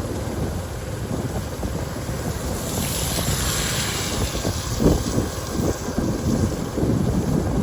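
Wind buffeting the microphone, a steady low rumble. A rushing hiss swells and fades about three to four seconds in.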